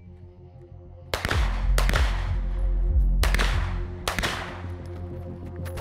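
Pistol shots: four sharp reports spaced roughly a second apart, each with a short echo tail, over background music.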